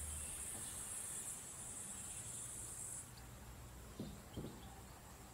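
Faint, high-pitched continuous insect trill that stops about three seconds in, followed by two short soft sounds a second later.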